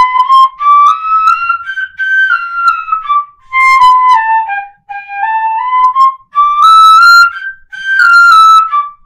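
Wooden pífano (Brazilian fife) in C playing scale runs that step up and down, in groups of four notes with three slurred and one tongued. Short gaps fall between the phrases.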